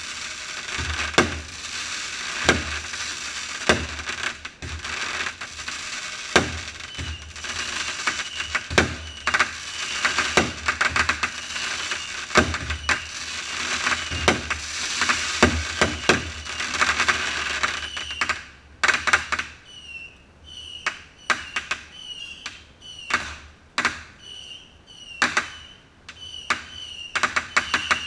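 Fireworks display: aerial shells bursting with repeated sharp bangs over dense crackling from crackling stars. About two-thirds of the way through, the crackling thins out into separate pops and clicks.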